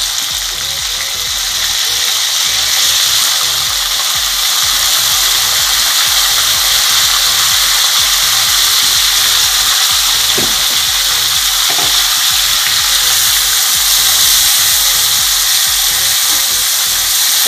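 Boiled cauliflower florets frying in hot mustard oil in a kadai: a loud, steady sizzle that builds over the first few seconds as more florets go into the oil.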